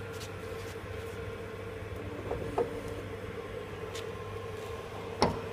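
Metal-cutting band saw running steadily through a round steel bar, cutting dry without water coolant: a constant hum with a steady tone. Two sharp knocks come a little before halfway and near the end, the second the loudest.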